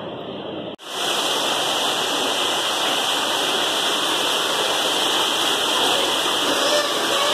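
Steady rush of water falling and splashing from an artificial rock waterfall. It starts abruptly about a second in, after a short stretch of duller steady noise.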